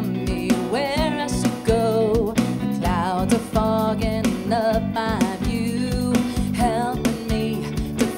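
Live band music: a woman sings a melody with vibrato over electric guitar, bass guitar and a drum kit keeping a steady beat.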